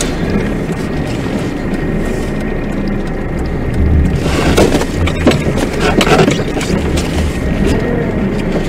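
Car interior on a snowy road: steady road and engine noise, then from about four seconds in, a couple of seconds of knocks and thumps with a low rumble as the car, swung sideways, jolts over the snowy roadside.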